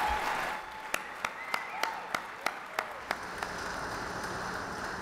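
Audience applause: a crowd clapping, then one person's claps close by at about three a second, stopping about three and a half seconds in.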